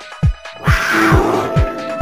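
Background music with a steady, fast bass-drum beat. The beat breaks off briefly at the start and resumes about half a second in.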